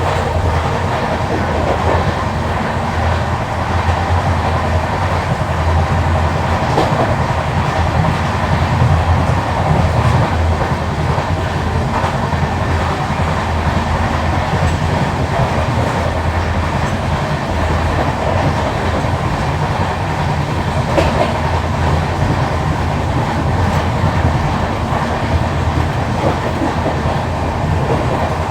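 Indian Railways LHB passenger coach running, a steady low rumble with wheel-on-rail clatter, carrying the knocking of a flat wheel, a wheel with a flat spot worn into its tread.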